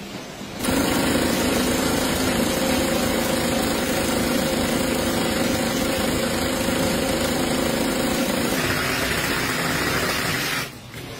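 Industrial sewing machine of a bamboo-mat edge-binding rig running fast, stitching binding tape along the mat's edge. It is a steady mechanical hum that starts about half a second in and drops away near the end.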